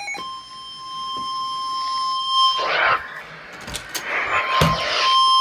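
Emergency alert warning tone: a single steady, even-pitched beep held for a couple of seconds. It is broken midway by a stretch of hiss and a few clicks, then comes back near the end. It is the alarm tone that comes before a severe thunderstorm warning broadcast.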